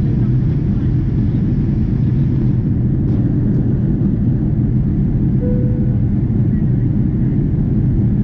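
Steady low roar of a Boeing 777-200ER's Rolls-Royce Trent 892 engines and the rushing airflow in flight, heard inside the cabin from a window seat by the wing. A brief faint tone sounds about halfway through.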